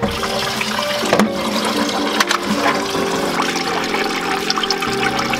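Green engine antifreeze gushing in streams from freshly cut bus heater hoses and splashing steadily into a plastic bucket below.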